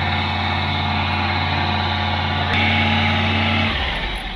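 Fire truck's pump engine running steadily while water hisses out of the hose. About three and a half seconds in, as the pump panel controls are worked, the engine note drops away and the spray hiss fades.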